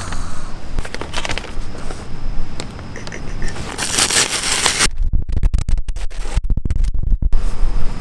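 Brown paper bag crinkling and tearing as it is pulled open by hand, with a louder burst of tearing about four seconds in, followed by low handling thumps.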